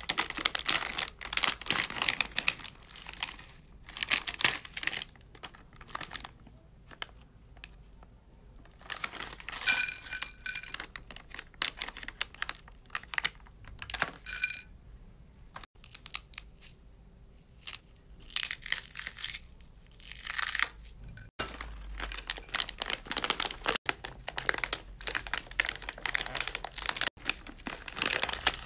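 Plastic snack packets of prawn crackers crinkling and crackling as hands squeeze, crumple and open them. The sound comes in repeated bursts with short pauses, and near the end scissors cut into a packet.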